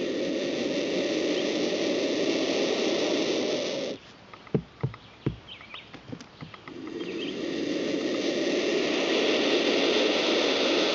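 Black vulture chicks hissing: a long raspy hiss that cuts off about four seconds in, a few short clicks and knocks, then another hiss swelling up and holding to the end.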